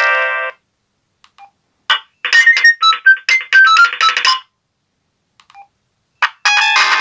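Samsung SGH-M140L mobile phone playing its ringtones through its speaker. A chordal polyphonic tune cuts off about half a second in. After a pause comes a quick run of short, high beeping notes. Near the end another polyphonic tune starts.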